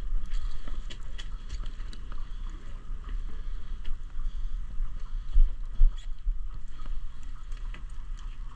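Boat's engine running with a steady low rumble, with scattered light clicks and knocks on deck and two louder thumps about five and a half seconds in.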